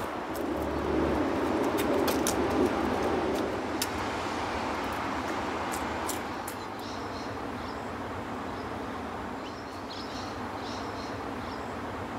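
Steady outdoor background noise, with scattered sharp clicks and faint high chirps in the second half.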